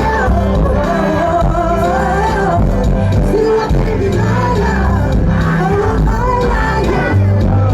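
Live Afrobeats music over a concert PA: heavy bass with a melodic singing voice gliding over it.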